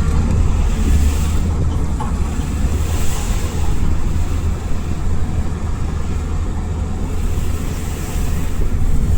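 JCB backhoe loader's diesel engine running steadily with a low rumble.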